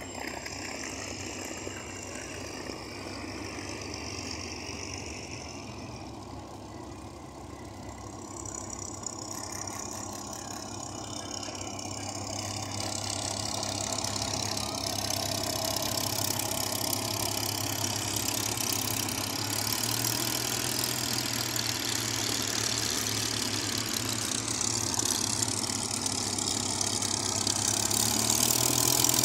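Supermarine Spitfire IX's Rolls-Royce Merlin V12 running at low power as the fighter rolls out along the runway after landing, a steady engine note that grows louder as it comes nearer.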